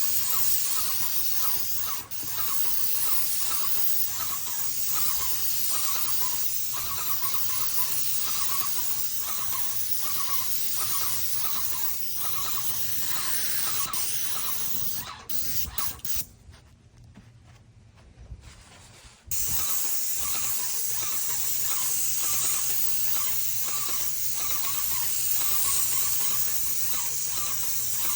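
Paint sprayer spraying: a steady loud hiss with a faint rhythmic pulse about twice a second. It cuts out for about three seconds past the middle, then starts again sharply.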